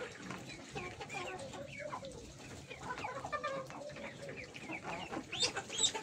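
A flock of young chickens clucking and calling while they feed, many short overlapping calls, with a few louder high, rising calls near the end.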